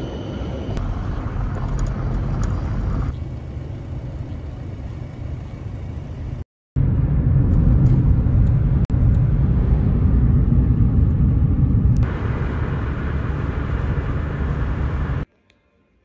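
Street ambience with traffic, then the steady low rumble of tyre and road noise inside a moving car, which is the loudest part. It cuts off suddenly about a second before the end.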